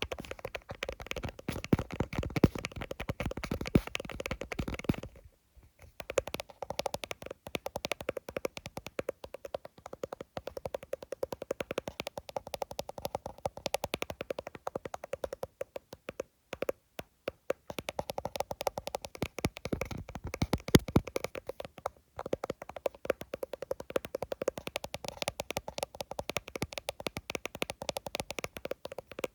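Rapid tapping on an iPhone, a fast run of quick taps that stops briefly a few times, the longest break about sixteen seconds in.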